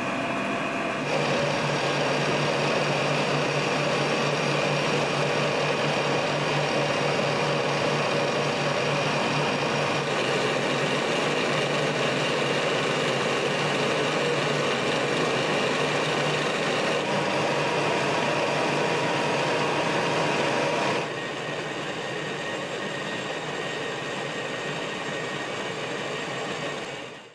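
Milling machine's motor and gearhead running steadily, with several steady tones over a mechanical hum. The sound changes abruptly about a second in and again about 21 seconds in, getting quieter at the second change.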